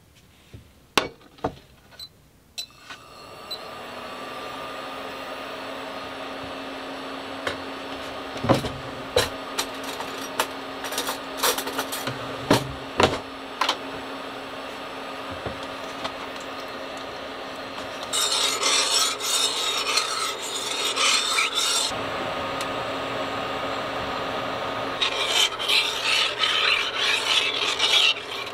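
Metal cookware knocking and clinking on a stove, then a metal spoon scraping round a stainless steel saucepan while stirring, in two long rasping stretches near the end.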